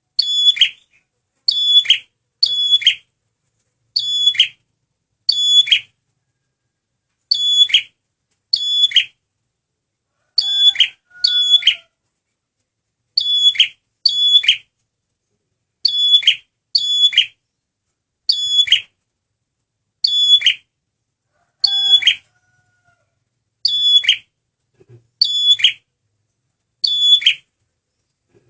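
A prinia (prenjak merah) calling over and over: short, sharp, high notes that slide downward at the end, often paired, about one every second, as used in a lure recording.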